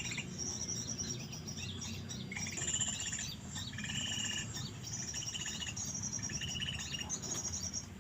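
Small songbirds calling: short buzzy trilled phrases repeated about every second and a half, with thin high chirps over them.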